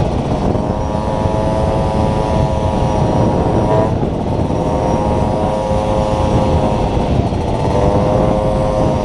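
Small motorcycle engine running hard under way, its pitch climbing slowly and dropping sharply about four seconds in and again about seven seconds in, over heavy wind noise on the microphone.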